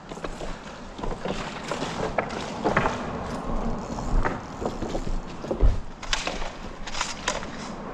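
Footsteps clattering and knocking over loose rocks, irregular sharp clicks over a steady rush of river current.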